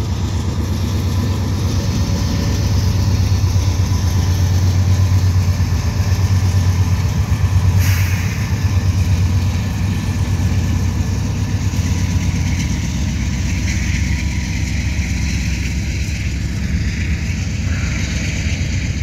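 Two GE C44-9W diesel-electric freight locomotives pass close by, their 16-cylinder diesel engines making a deep steady drone that fades after about ten seconds. Freight cars then roll by with steady wheel-on-rail noise. There is a short sharp noise about eight seconds in.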